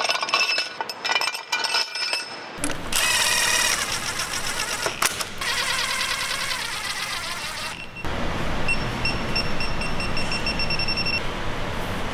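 A cordless drill-driver on a long socket extension runs bolts down into an engine cylinder head in two bursts, after a few light metallic clinks of parts being handled.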